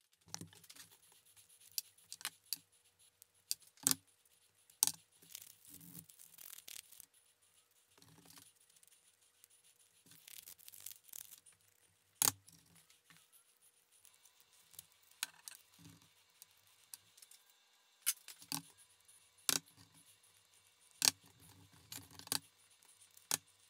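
Small wooden bow-tie keys being handled and cleaned up by hand on a wooden panel: scattered clicks and taps as the pieces are picked at and set down, with a few short bursts of scraping.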